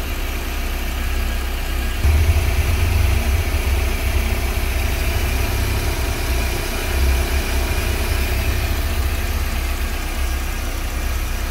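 Volkswagen AP 2.0 8-valve four-cylinder engine idling steadily while still cold. In this cold state it is not yet making the strange noise from the timing belt's tensioner or pulley.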